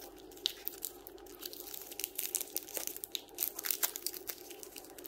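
Trading-card packs and cards being handled: irregular crinkling and crackling of a foil pack wrapper, with small sharp clicks, over a faint steady hum.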